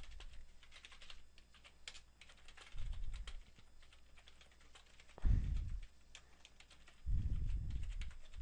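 Typing on a computer keyboard: quick, irregular key clicks as commands are entered, with three low muffled bumps around three, five and seven seconds in, the one near five seconds the loudest.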